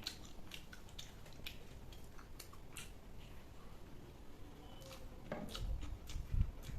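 A person eating and chewing, with many small, wet, irregular clicks from the mouth and a few dull thumps near the end.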